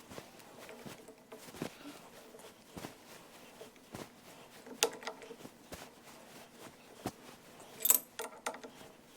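Scattered light knocks and metallic clinks of hand tools and steel parts being handled while a steering gear box is assembled and adjusted. A ringing clink comes about halfway through, and the loudest, a sharp ringing clink, comes near the end.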